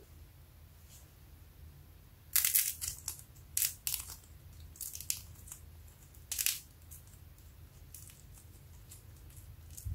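Soft yellow slime being squeezed and stretched by hand, giving short sticky crackling pops in several bursts, the loudest a couple of seconds in. A low steady hum runs underneath.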